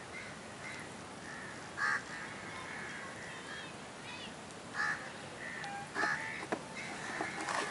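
Crows cawing a few times, with a smaller bird chirping between the calls over steady outdoor background noise.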